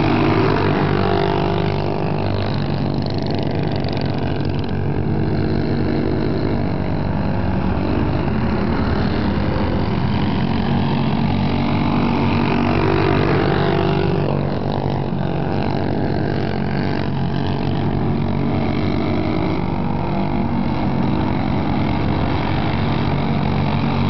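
Several small go-kart engines running as the karts race around a dirt track, their pitch rising and falling as they speed up, slow for the turns and pass by.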